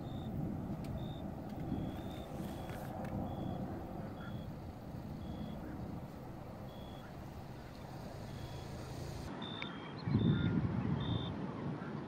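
Short, high, flat-pitched bird call notes, repeated at irregular intervals about once a second, over a steady low rumble of wind and ambient noise. The rumble grows louder about ten seconds in.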